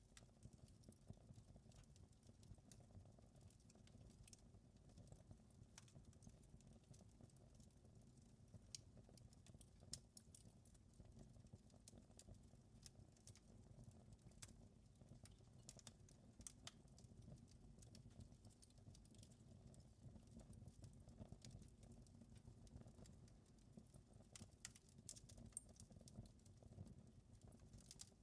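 Faint wood fire in a fireplace crackling, with irregular sharp pops and snaps over a low, steady rumble.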